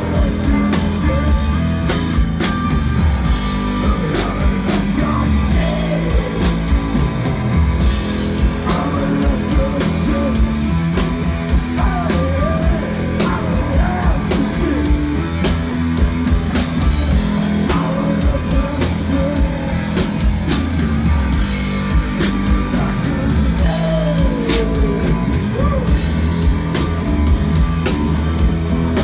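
Rock band playing a slow song live, with electric guitar, bass and a drum kit, and a gliding melody line over them.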